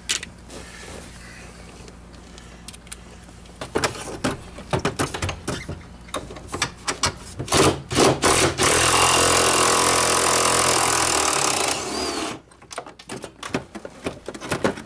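Socket wrench work on a dash bolt with a short 10 mm socket: a run of sharp clicks and knocks, then a power tool runs loud and steady for about three seconds and stops suddenly, followed by a few light knocks.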